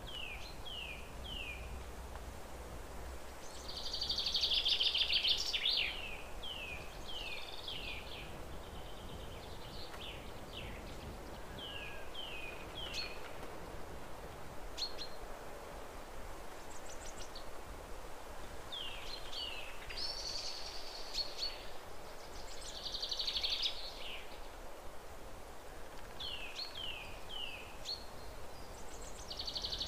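Songbirds singing: short downward chirps, often in quick runs of two or three, with a louder buzzy trill every several seconds, over a faint steady hiss.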